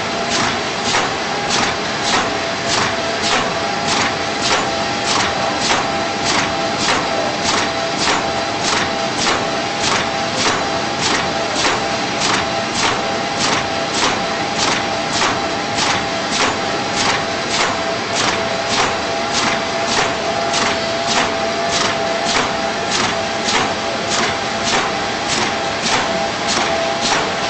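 Automatic four-colour container screen printer running at production speed, clacking evenly about twice a second over a steady mechanical hiss and whine.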